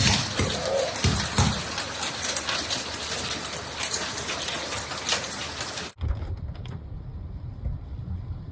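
Heavy rain pelting down on hard surfaces, a dense hiss full of fine spatters. About six seconds in it cuts off abruptly to a much quieter low rumble.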